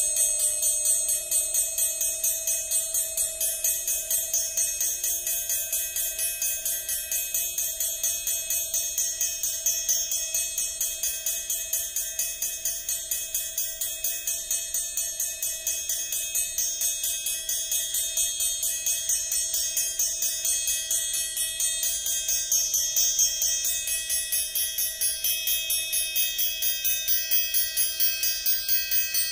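Amplified orchestral triangle tapped rapidly and evenly with a metal beater, while the player damps it with the other hand. Its high metallic overtones slowly shift and change as the damping and beater position vary, over a steady lower ringing tone.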